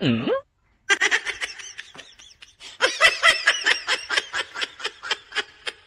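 Laughter in quick, high-pitched bursts, starting about a second in and running on. Just before it there is a short sound that dips and then rises in pitch.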